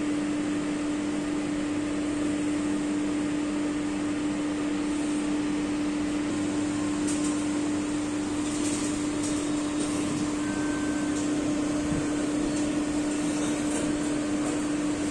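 Cobas e411 immunoassay analyser running: a steady machine hum with one strong low tone, and a faint short beep about ten seconds in.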